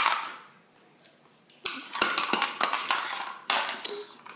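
A dog nosing and pawing at a small treat box on the floor, trying to get it open: a sharp knock at the start, a brief lull, then from about a second and a half in a run of repeated clatter and scraping as the box is knocked about.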